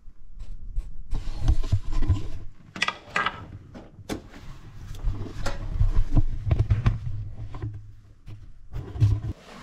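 Irregular metallic clicks and knocks of a wrench being worked on a rusted 16 mm bolt of a car's rear shock absorber mount, over a low rumble.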